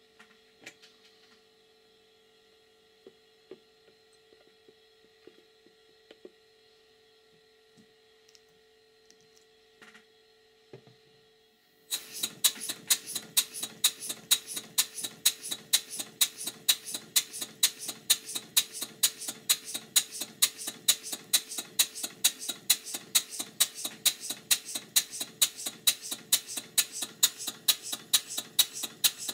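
Stuart 5A model steam engine on its very first test run on compressed air. For about twelve seconds there is only a faint steady hum and a few small clicks. Then the engine starts and runs with a fast, even beat of sharp exhaust puffs.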